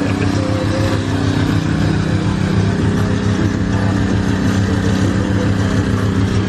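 Car engine idling with a steady low hum that does not change.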